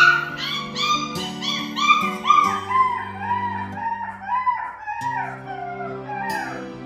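A two-month-old toy poodle puppy yelping and whining in short rising-and-falling cries, a few a second, thinning out after about three seconds. It is crying at being left alone in its pen, over soft background music.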